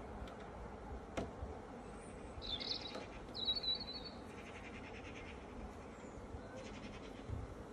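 A garden bird chirping in two short bursts a couple of seconds in, over a faint steady hum of honeybees around an open hive. A light click about a second in.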